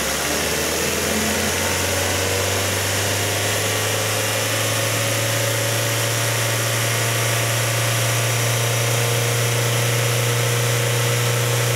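Ford engine revved up and held steady at about 3,000 rpm in park for an exhaust back-pressure test. The gauge barely moves off zero, which is normal for an unrestricted exhaust.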